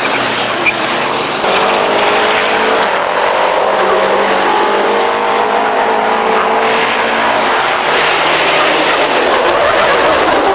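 Diesel race trucks' engines running hard on a circuit, the engine note falling and then rising again under loud road and exhaust noise.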